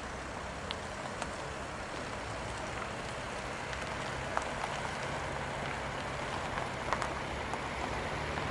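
Koleje Śląskie electric multiple unit approaching: a low hum that slowly grows louder from about halfway through, under a steady hiss with scattered small ticks.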